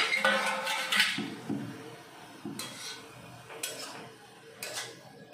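An aluminium pan lid clanks down and rings for about a second. Then a metal spatula scrapes and stirs cabbage and potatoes in an aluminium kadai, in strokes about a second apart.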